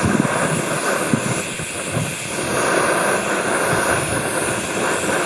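BRS-3000T canister gas stove burning steadily at a medium flame under a mug, a continuous hiss, with wind buffeting the microphone in irregular low gusts.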